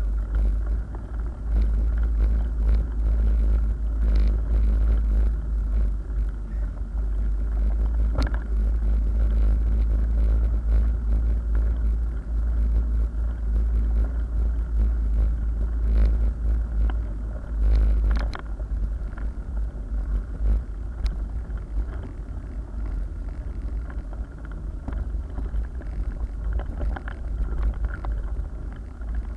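Low wind rumble on the microphone and road vibration from a mountain bike rolling along a paved lane, with a few short clicks and rattles from the bike. The rumble eases about two thirds of the way through.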